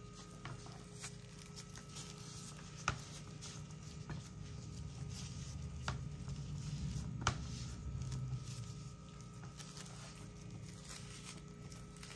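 Hand work wrapping sticky rice around chicken: scattered light taps and handling clicks, three of them sharper, over a low steady hum.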